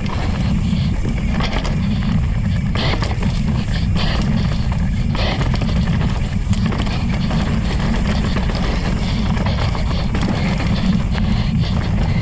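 Wind rushing over the microphone of a camera riding down a dirt mountain bike trail at speed, a loud steady rumble, with tyres on dirt and the bike rattling and knocking over bumps.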